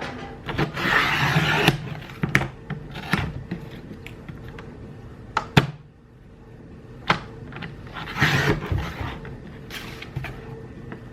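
Objects being handled: two bursts of rustling or rubbing, about a second in and again about eight seconds in, with scattered sharp clicks and knocks between them.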